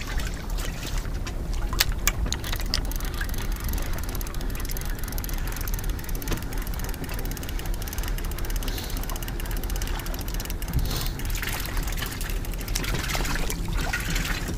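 Fishing reel being wound, giving a fast run of fine clicks over a steady low rumble.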